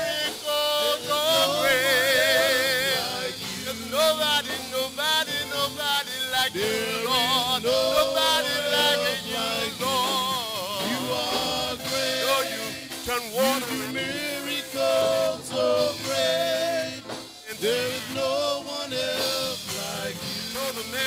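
Men's chorus singing a gospel praise song, a lead voice out front with wavering melismatic runs, over keyboard and drums.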